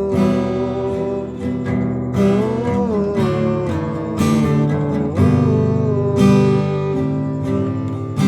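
Acoustic guitar strummed in an instrumental break of a song, with a melody line over it that slides between notes.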